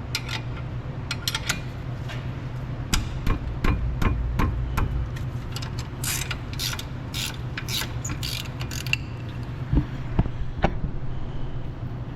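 Sharp metallic clicks and clinks of a hand tool on a brake caliper bolt as it is tightened, densest in the middle of the stretch, over a steady low hum.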